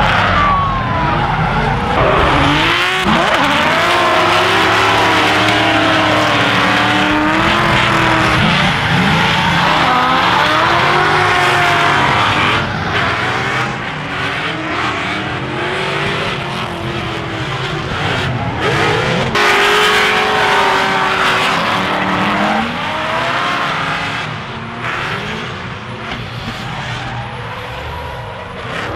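Several drift cars sliding in close tandem, their engines revving hard and wavering up and down in pitch over the continuous screech of spinning tyres. The mix changes abruptly a few times.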